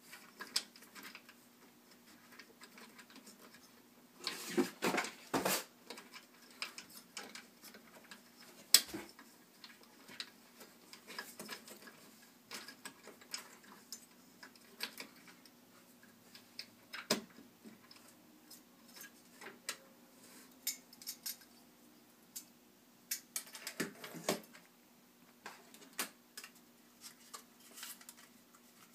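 Clicks, clinks and scraping of a stock AMD CPU cooler being handled: its metal retention clip unhooked from the socket bracket and the heatsink worked loose and lifted off the processor. Two short spells of scraping and rustling, about four seconds in and late on, and a single sharp click about nine seconds in, the loudest.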